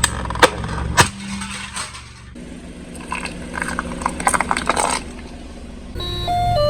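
A car tyre rolling over and crushing brittle objects: a few sharp cracks in the first second, then a spell of crackling, snapping crunches over the car's low engine hum. A short tune of stepped electronic tones starts near the end.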